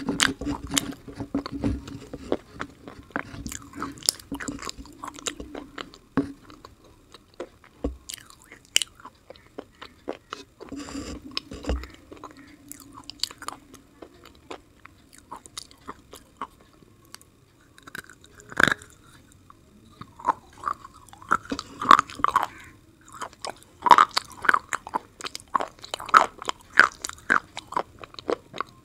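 Slate-pencil sticks coated in wet white paste being bitten and chewed: crisp cracking bites and gritty chewing. The chewing is sparse in the middle and comes thick and loud in the last third.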